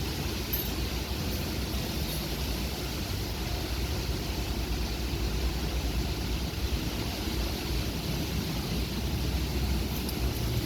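Strong storm wind blowing steadily. It buffets the phone's microphone with a constant low rumble under a rushing hiss.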